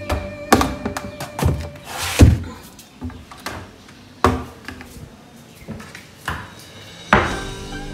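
Kitchen cabinet doors and a plate being handled: a series of knocks and thunks, the loudest about two seconds in. Background music fades out in the first two seconds.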